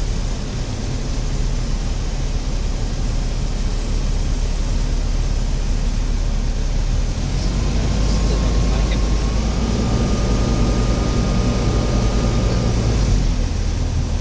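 Light single-engine propeller aircraft heard from inside the cockpit while landing on a grass strip: steady engine drone and airflow noise. A thin, steady high tone comes in about eight seconds in, steps up slightly in pitch, and stops about five seconds later, around touchdown.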